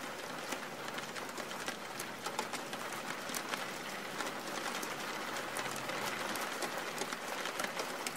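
Steady rain with many scattered droplet ticks: a rain ambience bed.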